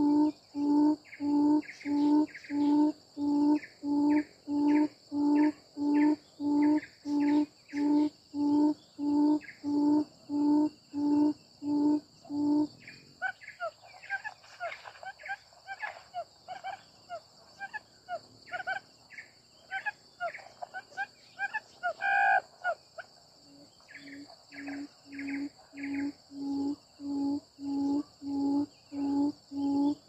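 Quail giving a low, evenly repeated call, about one and a half calls a second. The calling stops for about ten seconds in the middle, when quicker higher chirps take over with one louder call near the end of the gap, then resumes. A steady high insect buzz runs underneath.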